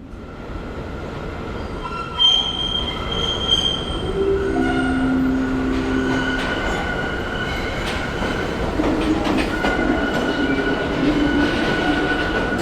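New York City subway train running on the rails, its wheels squealing in several steady high-pitched tones over a constant rumble. The sound builds over the first couple of seconds, with a sharp clank at about two seconds in.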